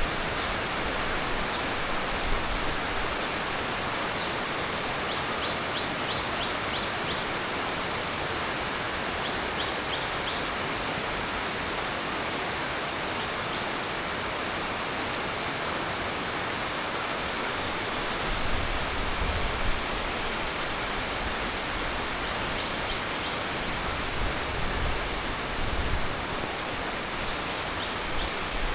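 Heavy tropical monsoon rain falling steadily, a dense even hiss. A few faint high chirps come in the first third, and low rumbles rise and fall in the second half.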